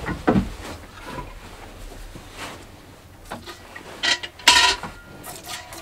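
Hand-milking a cow into a steel bucket: short hissing squirts of milk hitting the pail at an irregular pace, about one a second, the loudest about four and a half seconds in.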